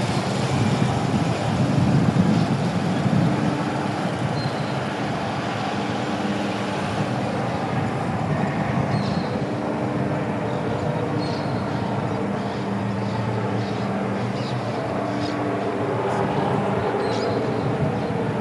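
Motorcade vehicles driving past: a police motorcycle's engine goes by loudest in the first few seconds, then steady engine and tyre noise as the limousine and escort SUVs pass.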